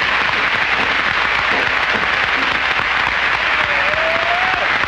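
Audience applause: dense, steady clapping from a nightclub crowd, heard on an old 1960 film soundtrack.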